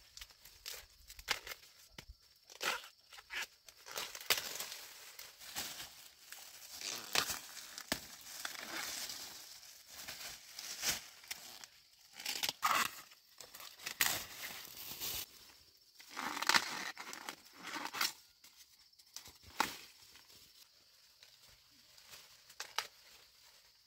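Corn leaves and stalks rustling, crackling and tearing as they are pushed through and handled, in irregular bursts with several sharp snaps.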